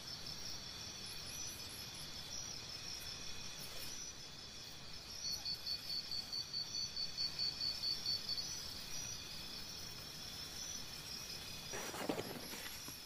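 Insects chirping in steady high-pitched trills, with a run of evenly spaced pulses, about four a second, through the middle. A brief rustle near the end.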